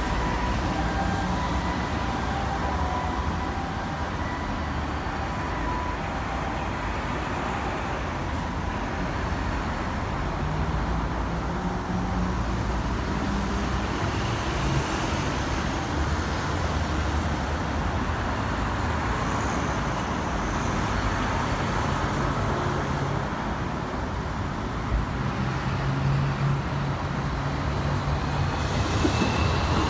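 Steady road traffic noise from a busy highway, with vehicle engines rising and fading. Near the end a Keikyu 1000 series electric train grows louder as it approaches.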